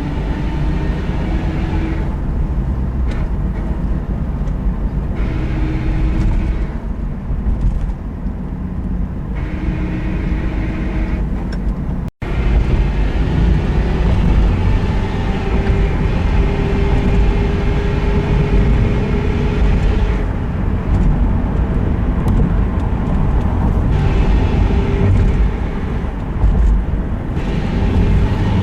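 Inside a moving 2001 Subaru Forester: road and drivetrain rumble, with a pitched grinding noise that comes and goes several times as the throttle is applied and released. The grind shows up under acceleration or light throttle and disappears off the gas, which the owner suspects could be the transmission or the bearings. The sound cuts out for an instant about twelve seconds in.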